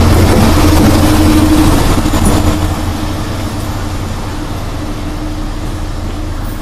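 Colas Rail Class 70 diesel locomotive running light past at close range, its V16 diesel engine running with a steady hum, loud at first and fading about two and a half seconds in as it draws away.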